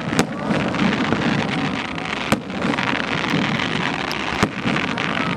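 Fireworks display going off: a continuous crackling hiss of bursting shells and sparks, broken by three sharp bangs about two seconds apart.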